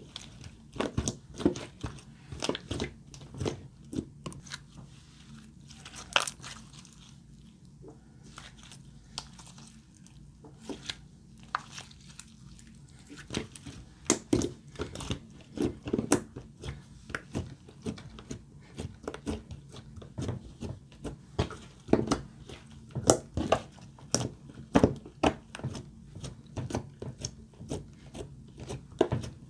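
Glossy slime being kneaded and pressed by hand, making a rapid, irregular run of small clicks and pops, sparser for a few seconds in the middle, over a faint steady low hum.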